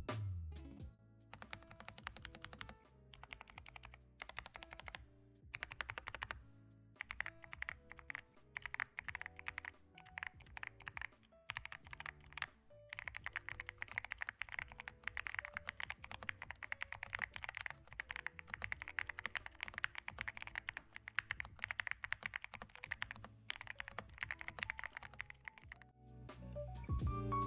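Typing on a Xinmeng M87 Pro mechanical keyboard fitted with G Yellow switches and OEM-profile keycaps: fast runs of key clicks in bursts, with short pauses between them, over quiet background music.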